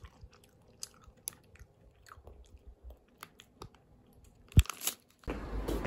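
Biting and chewing a corn-shaped wafer ice cream bar: scattered crisp crunches of the wafer, with one louder knock about four and a half seconds in. Near the end it cuts to steady outdoor traffic noise.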